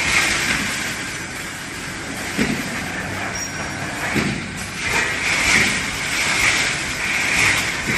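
Wire mesh welding machine running, with a hiss that swells and fades every second or so and a couple of short thumps near the middle.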